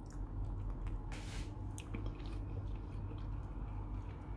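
A metal spoon working soft hazelnut cocoa spread in a glass jar: a short scrape about a second in and scattered small clicks, over a steady low hum.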